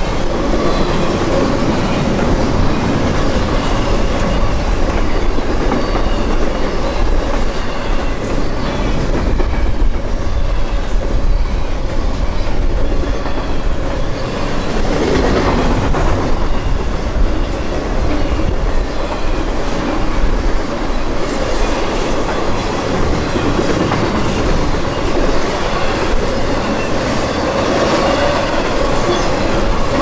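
CSX intermodal freight train's container well cars and trailer flatcars rolling past close by: a steady loud rumble and clatter of steel wheels over the rail joints, with a faint steady ringing tone over it.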